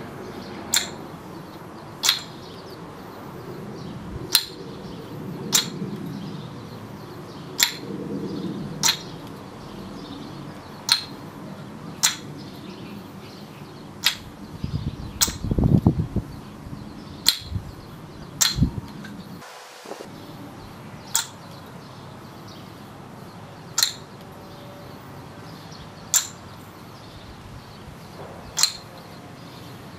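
Maple Sweets Homegrown kendama: the wooden ball clacking onto the cups and spike in a steady run of single sharp knocks, about one every second or so. About halfway through comes a quicker cluster of louder knocks with a dull thump.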